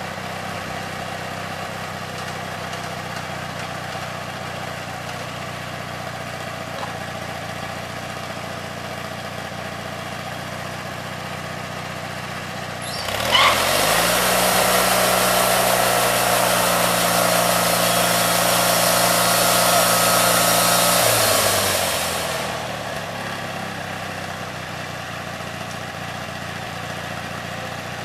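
An engine idling steadily, revved up about halfway through, held at higher speed for about eight seconds, then let back down to idle.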